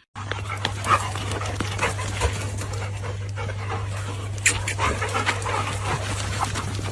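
A dog panting in quick, irregular breaths over a steady low hum.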